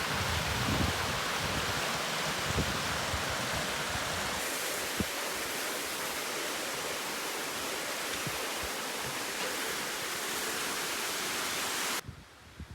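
Steady rush of falling water from a waterfall, a dense even hiss that cuts off suddenly near the end.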